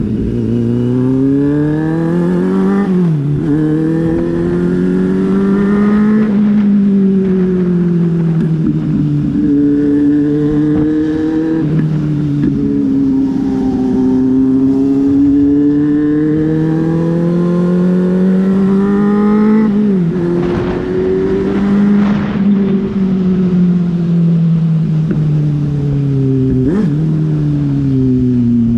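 Kawasaki Z800's inline-four engine riding under load, its pitch climbing through the revs and dropping abruptly at each of about five upshifts, with slower falls where it eases off between.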